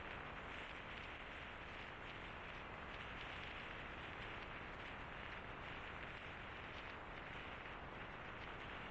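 Steady, even hiss with no distinct events standing out.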